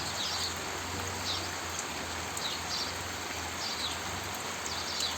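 Steady rushing noise of water, with short high chirps repeating about once a second.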